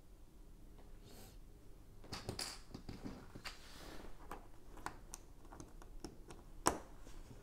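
Plastic Lego bricks being handled and pressed together on a tabletop: a run of light clicks and taps from about two seconds in, with one sharp snap near the end as a piece is pushed on.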